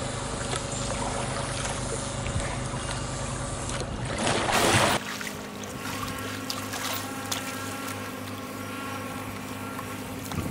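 Water sloshing and splashing around a kayak and its paddler as the boat is tipped up and held vertical in a stern stall, with a louder rush of water about four seconds in. A steady low hum runs underneath.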